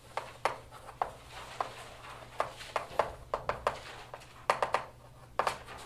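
Chalk writing on a blackboard: a dozen or more sharp, irregular taps and short scratches as the chalk strikes and drags across the slate. A faint low room hum runs underneath.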